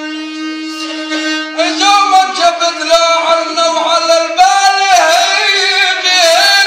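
Rababa, the Bedouin spike fiddle, bowed on a long held note. About one and a half seconds in, a man's voice enters over it, singing a sad, ornamented Bedouin vocal line to the fiddle's accompaniment.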